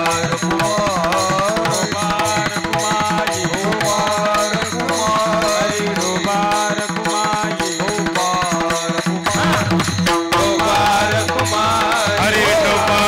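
Devotional kirtan music: hand drums play a rhythm under a gliding melodic line over a steady held drone. The low drum strokes drop out briefly about nine seconds in and come back a second later.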